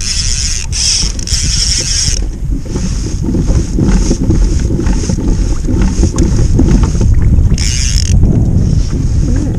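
Strong wind buffeting the microphone: a loud, steady low rumble, with bursts of high hiss during the first two seconds and again about eight seconds in.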